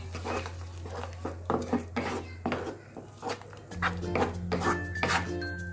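Spatula scraping and knocking repeatedly against a pan while thick sauce is stirred, with background music underneath.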